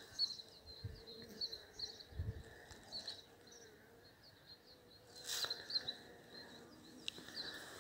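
Small birds chirping faintly and repeatedly, with a faint steady hum of honeybees from the hives in the first few seconds. A brief rustle of handling noise a little past the middle.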